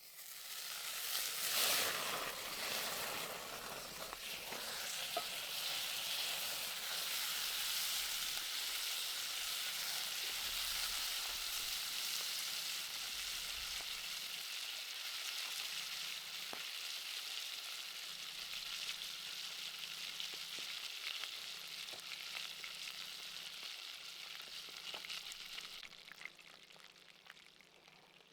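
Food sizzling on a hot cooking surface, most likely the beef neck steak. The sizzle starts suddenly and is loudest in the first couple of seconds, settles into a steady sizzle, and drops away a couple of seconds before the end.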